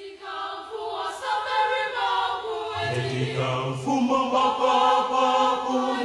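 Choir singing long held chords as the programme's title music, with a lower voice part entering about three seconds in.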